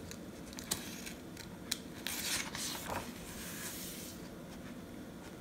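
A page of a paper picture book being turned by hand: a couple of light ticks, then a soft papery swish about two seconds in as the page goes over and is laid flat.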